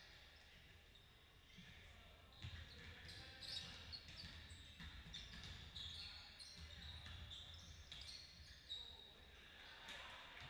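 Faint sounds of a basketball game on a court: the ball bouncing in irregular knocks, short high sneaker squeaks, and distant voices.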